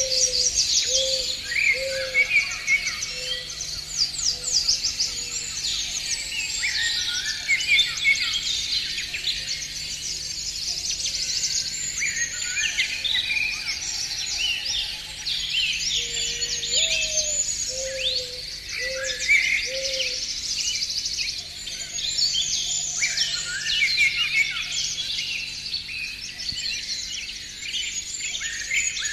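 A dense chorus of small songbirds chirping and trilling continuously. A low hooting call repeats in a short series at the start and again about two-thirds of the way through.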